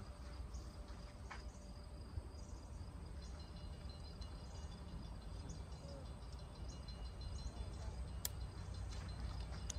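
Faint insects chirping in steady high notes over a low, even rumble, with a sharp click about a second and a half from the end.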